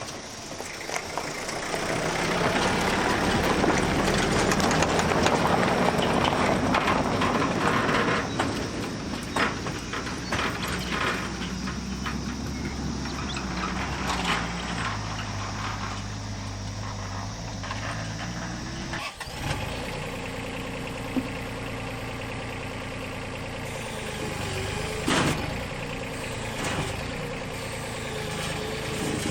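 Komatsu PC05-7 mini excavator's diesel engine running steadily, louder under load in the first several seconds, with a few sharp knocks from the machine working.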